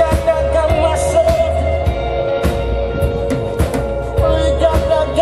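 Live rock band playing: a male singer with acoustic guitar over a drum kit and electric guitars, with a steady beat.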